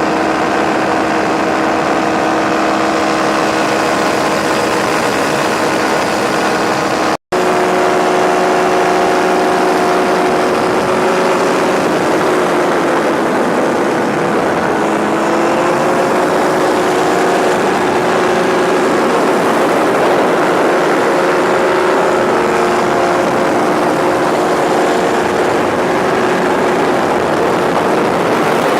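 An engine running steadily, its pitch shifting a little partway through. The sound cuts out for an instant about seven seconds in.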